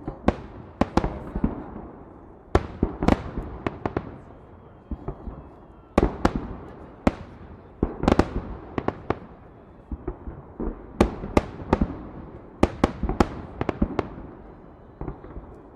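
Fireworks shells bursting overhead in the Victory Day salute. The sharp bangs come in quick clusters every one to two seconds, each trailing off in an echo.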